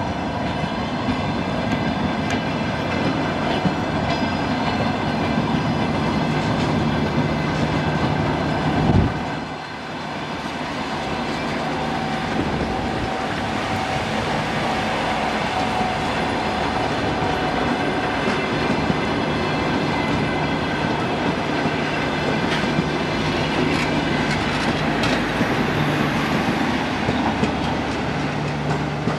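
Two coupled DR1AC diesel multiple units passing at close range: steady diesel engine running with wheels clicking over the rail joints. A loud thump comes about nine seconds in, and a thin whine is heard from about twelve to eighteen seconds.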